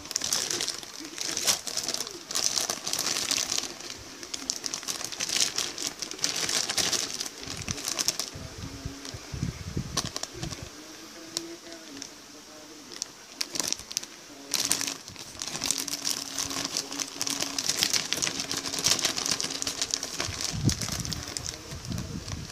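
Clear plastic model-kit bags crinkling and rustling, with the plastic runners knocking lightly, as the kit's parts are handled and unpacked. Dense crackle throughout, with a few soft bumps.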